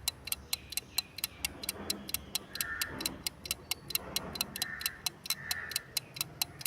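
Countdown clock ticking sound effect: fast, even ticks, about five a second, over faint music.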